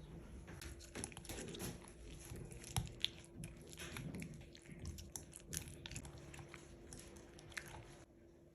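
Irregular small clicks, crackles and rustles of hands handling food and kitchen things, over a faint steady hum.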